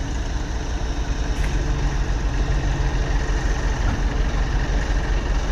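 A heavy diesel engine running steadily close by, its note and level picking up slightly about a second and a half in.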